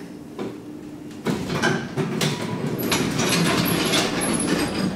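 The sliding doors of a 1967 Flohr-Otis traction elevator opening on arrival at the top floor. A sudden sliding, rattling noise starts about a second in and runs on, with several clicks.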